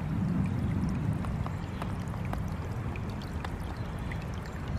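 Shallow forest brook trickling over leaf litter and stones: a steady rush of running water with many small splashing ticks.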